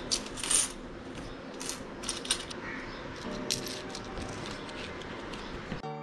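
Metal coins clinking against each other and a glass table top as a hand sorts and drops them: a string of sharp, short chinks, about eight in all.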